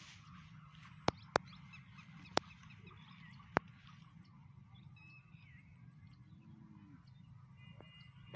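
Quiet outdoor field ambience: faint scattered bird chirps over a low steady rumble, with four sharp clicks in the first few seconds.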